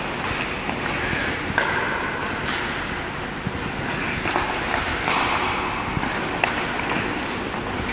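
Ice hockey skates scraping and carving on the ice, with a few sharp clacks of sticks hitting the puck and the ice.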